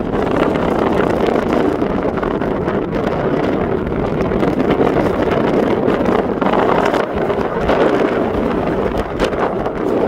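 Steady wind rushing over the microphone on the open deck of a moving ferry, mixed with the vessel's continuous noise underway.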